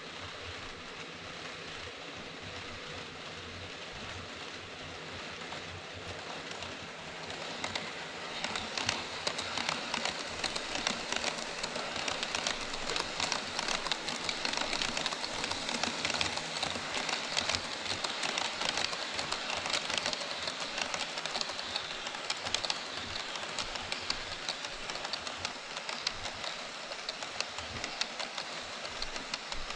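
HO scale model freight train, double-headed EF66 and EH200 electric locomotives pulling Koki 104 container wagons, running on KATO Unitrack: a steady hiss of wheels and motors with fine rapid clicking over the rail joints. It grows louder from about seven seconds in as the train comes past close by.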